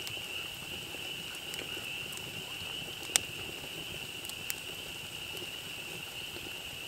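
Campfire crackling, with two sharp pops about three seconds apart, over a steady high-pitched night chorus.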